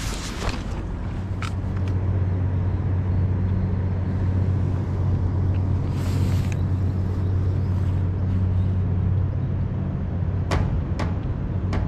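Steady low engine drone running throughout, with a brief rush of noise about six seconds in and a few sharp clicks near the end.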